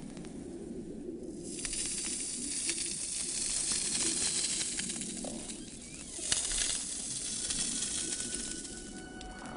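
Killer whale rubbing its body along a pebble seabed, heard through an underwater microphone: a raspy, hissing scrape with pebbles clicking and ticking. It swells about a second and a half in, eases off, then surges again just after six seconds before fading.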